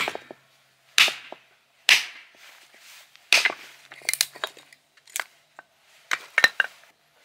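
Repeated hard blows from a hand tool, about eight sharp strikes roughly a second apart, each ringing briefly before the next.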